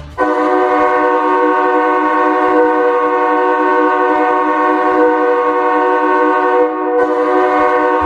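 Austin Bruins' ice hockey goal horn sounding one long, steady chord of several tones, signalling a goal. It starts about a quarter second in and dips briefly near the end.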